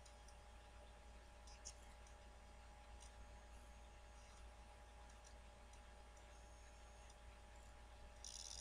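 Near silence: a faint steady hum of room tone with a few faint clicks, and a brief soft hiss near the end.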